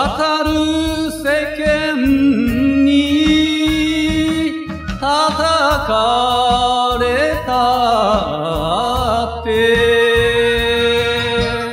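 A solo voice singing an enka song over a backing band track with a steady drum beat; a long held note wavers with vibrato about two-thirds of the way through.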